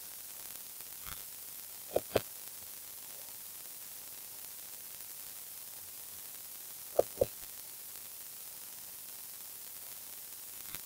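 Computer mouse button clicks: a quick pair of clicks about two seconds in and another pair about seven seconds in, over a steady hiss.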